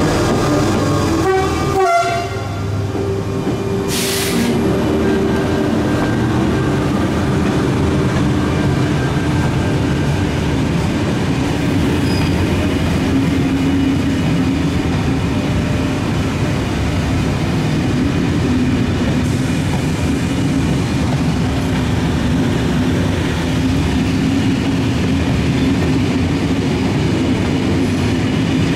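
A Ouigo train of Corail coaches rolling slowly past: a steady rumble of wheels on rails with a low hum and a brief hiss about four seconds in. It opens with the rising whine of a double-deck RER train's motors as it pulls away, cut off sharply about two seconds in.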